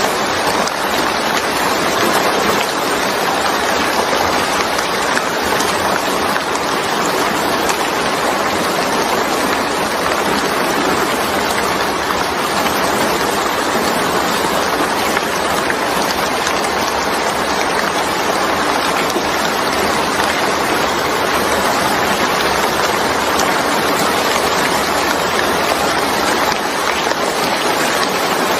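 Steady, even rainfall, an unbroken hiss of rain with no separate drops, thunder or other events standing out.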